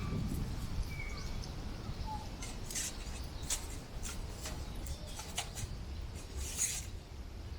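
Strong wind buffeting the microphone as a steady low rumble, with several short sharp crackles or rustles scattered through the second half.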